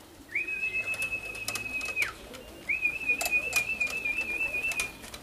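A person whistling two long, high held notes, the second longer and slightly wavering, the way a pigeon fancier calls a returning flock of racing pigeons down to land. A few sharp clicks come in between.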